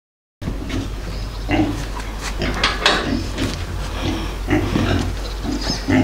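Two-month-old piglets grunting in a string of short, irregular calls, over a steady low rumble.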